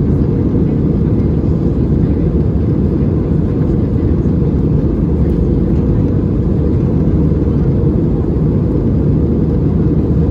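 Steady low rumble of engine and airflow noise inside the cabin of an Airbus A320-216 in flight, its CFM56-5B engines running evenly as heard from a window seat behind the wing.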